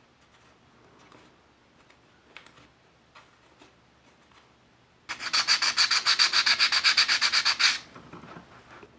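Small wooden model-ship part being sanded with fast back-and-forth strokes: a scratchy rasp at about eight strokes a second that starts about five seconds in and lasts some two and a half seconds. Before it, faint light clicks as the part is handled with tweezers.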